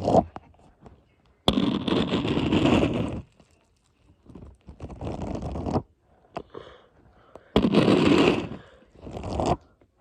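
Crackling, scraping handling noise in four bursts of about a second or two each, with quiet between: something being rubbed or crinkled close to the microphone.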